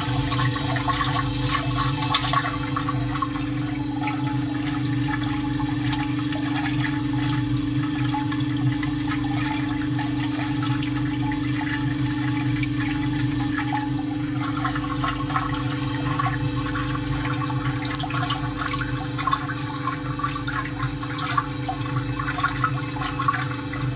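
Water churning and swirling in a still pot, stirred by a 30 cm propeller blade on a geared electric stirrer motor, with the motor's steady hum underneath.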